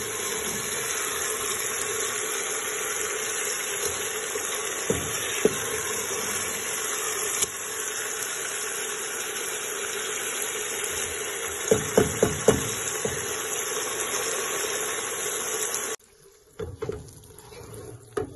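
Chicken karahi masala sizzling steadily in a pot as it is fried and stirred with a wooden spoon, with a few knocks of the spoon against the pot, several together about twelve seconds in. Near the end the sizzling cuts off suddenly, leaving a few quieter knocks.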